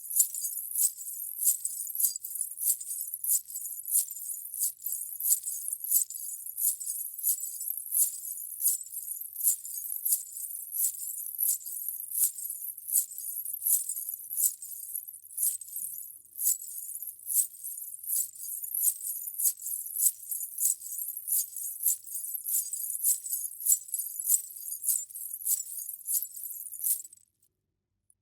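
Indian ghunghroo, strings of small metal ankle bells, jingling in an even rhythm of about two jingles a second, the pace of walking steps wearing them. The jingling stops shortly before the end.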